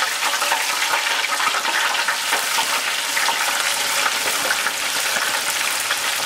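Hot oil in a stainless-steel benchtop deep fryer bubbling and sizzling steadily and loudly around a whole flour-coated bream held in it and waved back and forth.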